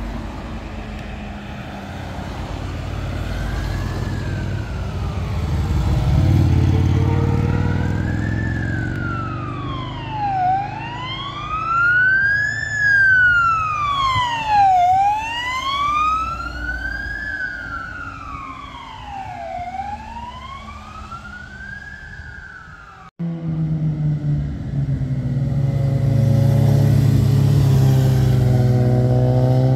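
Ambulance siren wailing, rising and falling about once every four seconds, over the rumble of passing motorcycle engines. Near the two-thirds mark it cuts off suddenly, and a motorcycle engine runs steadily after that.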